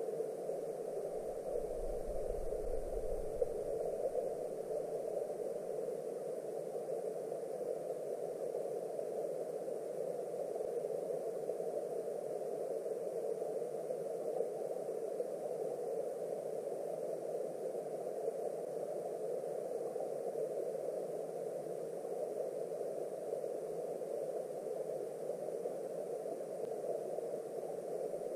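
Steady, muffled rushing of a clear mountain stream's current, heard underwater, with a brief low rumble a couple of seconds in.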